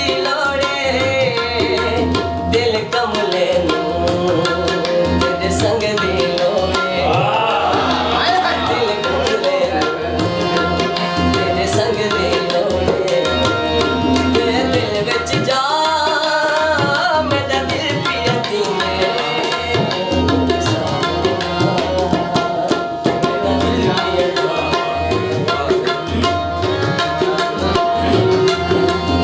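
Saraiki folk song performed live: a man sings in long, gliding phrases over quick hand-drum strokes and steady held notes of the accompaniment.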